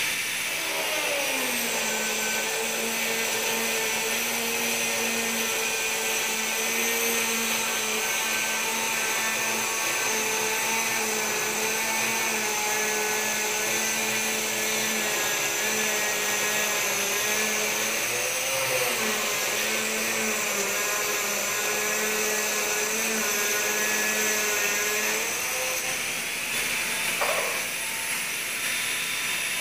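Electric power tool motor running steadily under load at a workbench, its pitch dropping about a second in as it bites into the work, rising briefly near the end as the load comes off, then dropping again.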